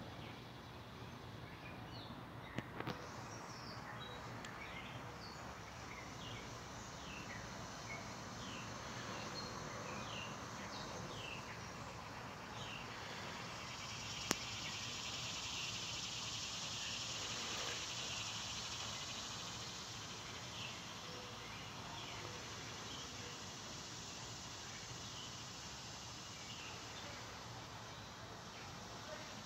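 Outdoor ambience: a steady insect drone that swells for several seconds in the middle, with scattered short bird chirps and two sharp clicks.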